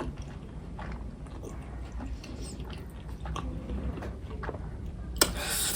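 Close-up chewing of momo dumplings, with small wet mouth clicks. A brief, louder noisy sound comes near the end.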